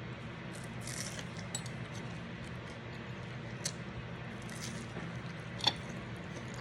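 Eating sounds: soft wet chewing and mouth noises with scattered light clicks, one sharper click near the end, over a low steady hum.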